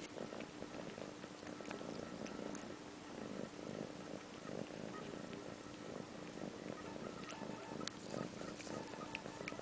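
Domestic cat purring steadily close up, with a few sharp clicks now and then.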